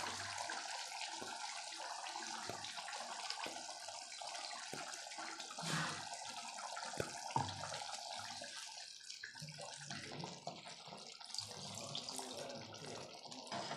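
Curry bubbling in a non-stick pan while a steel ladle stirs it, with scattered short clinks and scrapes of the ladle against the pan. Ground coconut paste is added and stirred in partway through.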